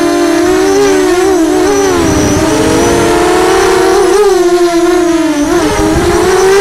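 A 250-size quadcopter's brushless motors and propellers whining in flight, heard close up from a camera mounted on the quad. Several close tones rise and dip together as the throttle changes, with a low rumble underneath about two seconds in.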